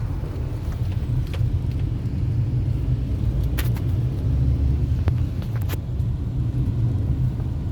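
Steady low rumble of a car in motion, engine and road noise, with a few faint brief clicks.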